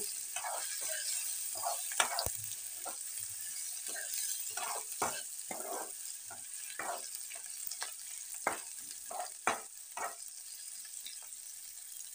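Sliced onions and garlic sizzling in oil in a metal kadai, with a spoon scraping and knocking against the pan as they are stirred. The scrapes come at irregular intervals, and the sharpest knock comes about two seconds in.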